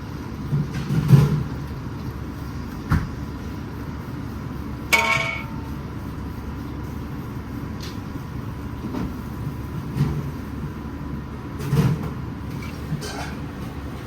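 Commercial kitchen at work: a steady low rumble with scattered knocks and clatter, and one brief ringing clang about five seconds in.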